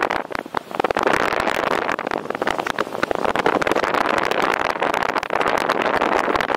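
Wind rushing over the microphone in paraglider flight: a steady, gusty rush with a brief dip in loudness just after the start.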